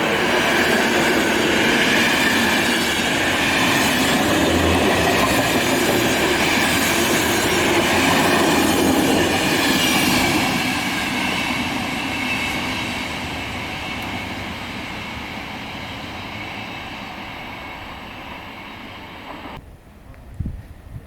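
Electric-locomotive-hauled passenger train passing through a station at speed: a loud rush of wheels on rails that fades away after about ten seconds, then cuts off abruptly near the end.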